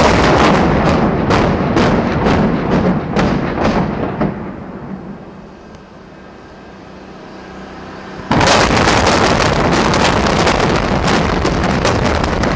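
Explosive demolition charges imploding a 20-story tower: a dense, crackling volley of sharp blasts starts abruptly and dies away over about four seconds. A second sudden volley of blasts comes about eight seconds in and carries on loud as the building comes down.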